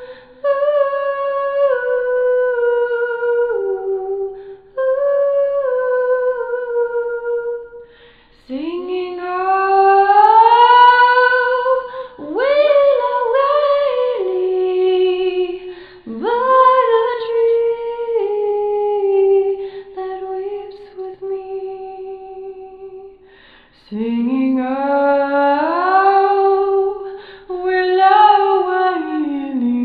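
A woman singing a wordless melody, in phrases that swoop upward into held, falling notes, with short breaks between them.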